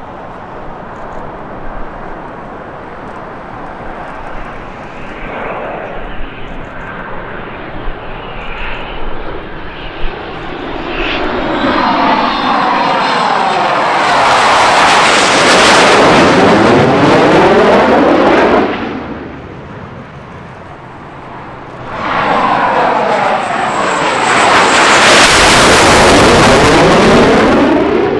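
Twin-engine F/A-18 Hornet jet flying a low, slow pass with its landing gear down. The jet noise builds from about ten seconds in to a loud, sweeping whoosh as it passes overhead, drops away for a few seconds, then comes back loud near the end as it goes away.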